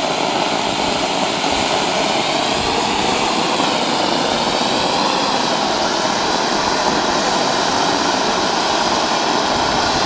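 Ground fountain firework spraying sparks with a steady, loud hiss.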